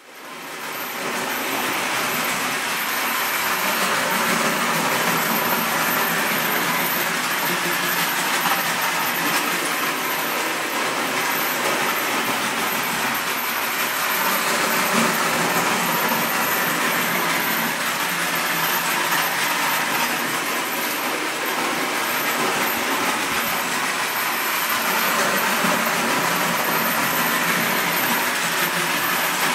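Distler H0 battery-powered toy train running on its track: a steady whir of the small motor mixed with the rattle of the wheels. It fades in over the first second or so.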